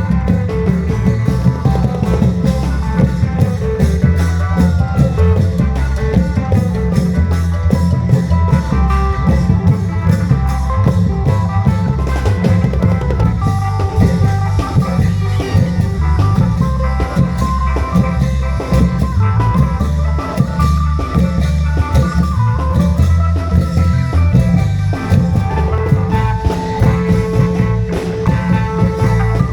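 Isan klong yao long-drum band music: long drums beating a dense, steady rhythm with high percussion hits, under a melody line in khaen style.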